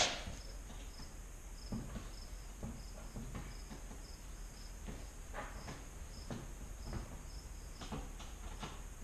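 A cricket chirping: short, high chirps at one pitch, repeating about twice a second. A few soft knocks and clicks from handling sound over it, the sharpest right at the start.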